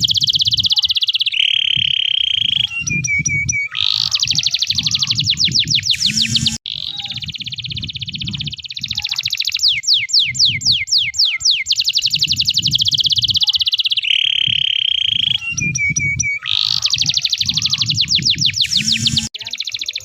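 Canary singing a long, unbroken song of fast high trills and rapid rolling notes, with a held steady whistle between phrases; the same run of phrases comes round again partway through.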